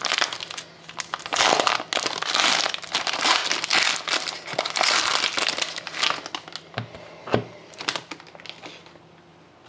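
Trading card pack wrapper crinkling as the pack is torn open and handled, with dense crackling that thins to a few clicks and dies down over the last couple of seconds.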